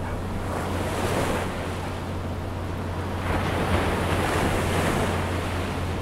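Ocean surf washing on the beach, swelling twice, with wind on the microphone and a steady low hum underneath.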